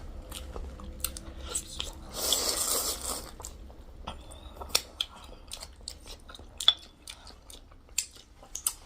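Close-up mukbang eating sounds: chewing and biting, with scattered sharp mouth clicks and smacks and a brief rush of noise about two seconds in.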